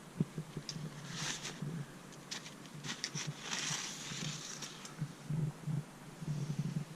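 Light clicks and taps of small metal engine parts being handled, with a longer scrape about three and a half seconds in, as piston rings are worked off and onto a piston.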